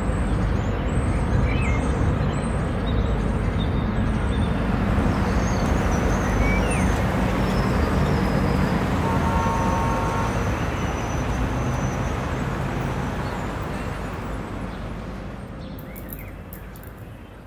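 City ambience: a steady low rumble of distant traffic with birds chirping in the first few seconds and a brief horn-like tone about halfway through, fading out near the end.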